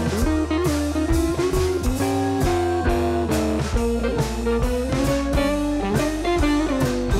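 Instrumental background music: guitar over a bass line, with a drum kit keeping a steady beat.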